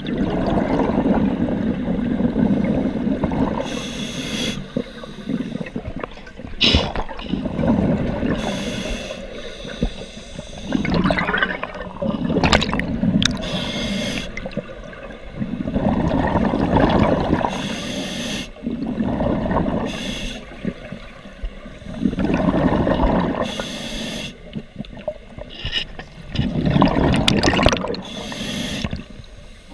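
Scuba diver breathing through an open-circuit regulator underwater: a short hiss on each inhale, then a bubbling rumble of exhaled air, repeating about seven times at a slow, even pace.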